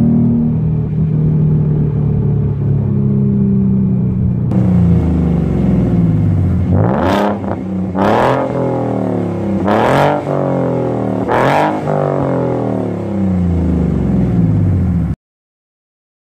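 Sports car engine running through its exhaust at a steady note, then, after a change in the sound about four and a half seconds in, revved four times, each rev rising sharply in pitch and falling back. The sound cuts off abruptly near the end.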